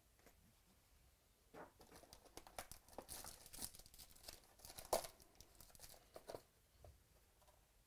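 Faint crinkling of foil-wrapped trading card packs and rustling of the cardboard box as the packs are lifted out and set on the table, with one sharper tap about five seconds in.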